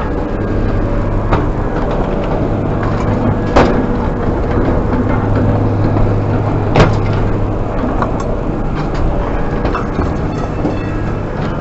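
Motor vehicle running with a steady low drone, with two sharp knocks, one about three and a half seconds in and a louder one near seven seconds.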